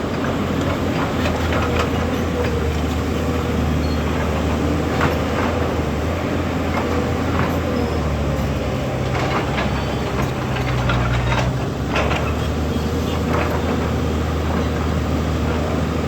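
Excavator diesel engine running steadily, with scattered short metallic clanks. Its note rises for a few seconds around the middle, as if under load, then settles back.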